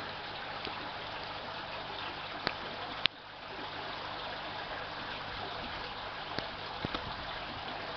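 Water trickling and splashing steadily into an IBC aquaponics fish tank from the system's circulating flow. Two sharp clicks come about two and a half and three seconds in.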